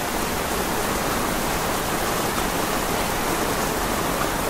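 Heavy rain pouring steadily onto a flooded street, a constant hiss of rain on wet pavement and running water.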